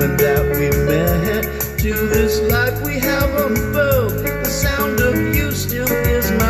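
A band playing an instrumental passage of the song over a steady drum beat, with a lead melody that slides between notes.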